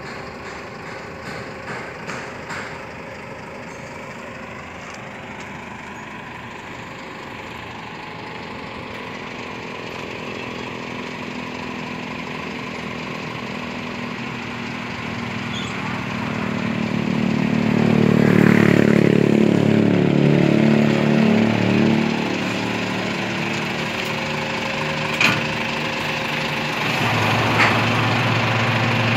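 Hino Victor 500 truck's diesel engine running steadily. It grows louder and fuller for a few seconds past the middle, then settles into a steady idle. There are two short sharp clicks near the end.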